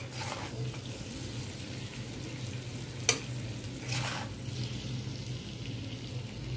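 Metal spoon scraping sizzling mutton curry out of a hot kadai (wok), as the cooked-down masala is moved into a pressure cooker. There is a sharp clink of metal on metal about three seconds in, then another scrape a second later, over a steady low hum.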